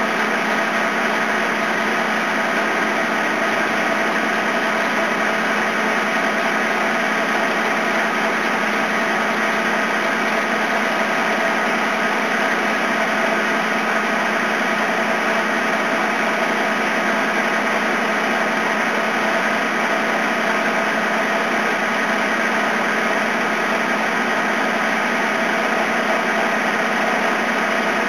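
Engine lathe running steadily, spinning a workpiece between centers while a center drill in the tailstock cuts a center hole in its end. A constant hum with a few steady tones, unchanging throughout.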